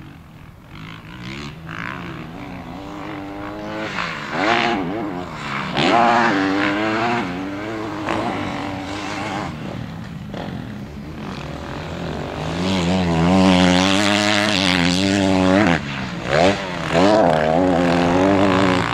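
Motocross dirt bike engine revving up and dropping off again and again as the throttle is worked. It is loudest in a long pull past the middle, with a couple of short sharp blips near the end.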